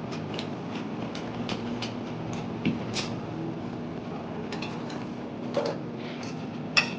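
A steady low mechanical hum with scattered light clicks and clinks, the sharpest one near the end.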